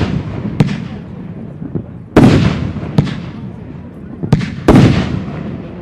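Aerial firework shells bursting: two loud booms about two and a half seconds apart, each dying away in a long rolling echo, with three lighter, sharper bangs in between.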